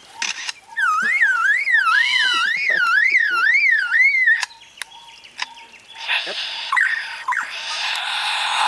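A bird mimicking an alarm: a whistled tone swooping up and down about twice a second for a few seconds, then near the end a harsh, noisy screech.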